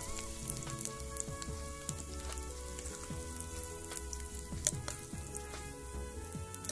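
Dried anchovies sizzling and crackling as they fry in hot oil until crisp, with many small pops throughout.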